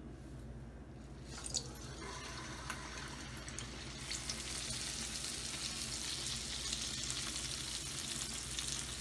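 Hot oil in a karahi sizzling and crackling around a ball of ground maash (urad) dal batter frying into a dahi bara. The sizzle comes in about a second and a half in and gets louder a few seconds later.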